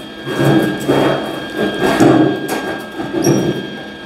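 Steel Vise-Grip locking pliers and locking C-clamps clanking against each other as they are handled, a string of uneven knocks about twice a second.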